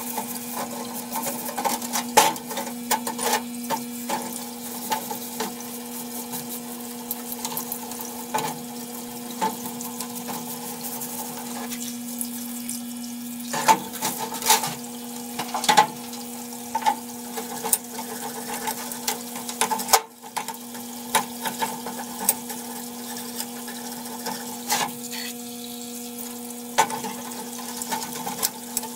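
Parts-washer pump humming steadily while solvent streams from its flexible nozzle and splashes over a Honda CT110 cylinder head, with scattered clinks and knocks as the metal head is turned and scrubbed in the tank.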